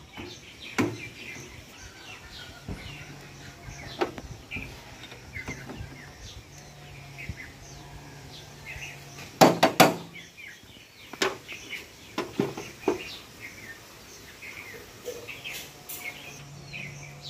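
Scattered metal knocks and clanks as a power tiller's belt pulley is worked loose and pulled off its gearbox, with a loud cluster of knocks about halfway through. Birds chirp in the background.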